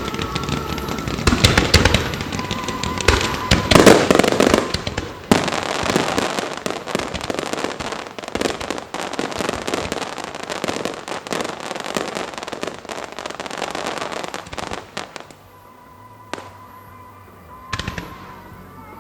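Large starmine fireworks barrage: rapid, overlapping shell bursts and crackling, loudest in the first few seconds. It thins out and stops about three-quarters of the way through, leaving two single bangs over quieter music.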